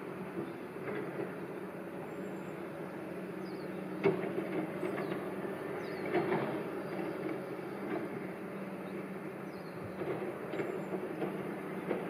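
Steady hum of distant motor traffic, with a few faint knocks and short high chirps now and then.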